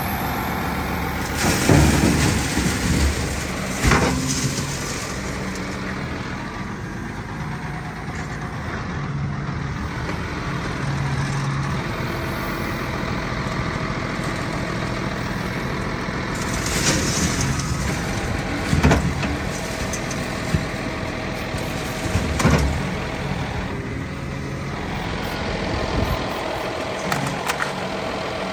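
Heavy vehicle engine running steadily at a low, even pace, with half a dozen loud thumps and clanks spread through: two in the first few seconds and a cluster about two thirds of the way in.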